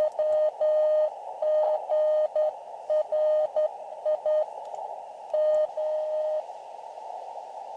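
Morse code (CW) from an Elecraft KX2 transceiver: a single steady tone keyed on and off in dits and dahs over the radio's narrow band of hiss. The keying stops about six seconds in, leaving only the hiss.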